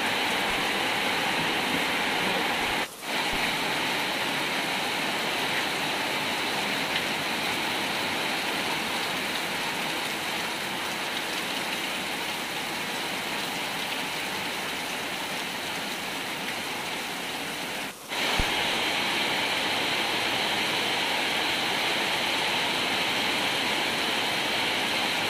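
Heavy rain pouring down, a steady even hiss of water on leaves and hard surfaces. It briefly drops out twice, about three seconds in and again near eighteen seconds.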